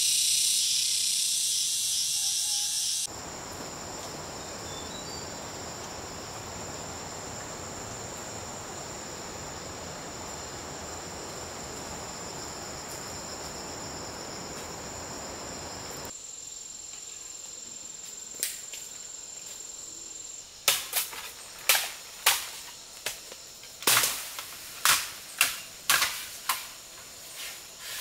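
A loud high hiss for about three seconds cuts off into a steady rushing noise with a thin, high, steady insect drone of crickets or cicadas. About eight seconds from the end, a run of about a dozen sharp, irregular knocks of hard blows begins.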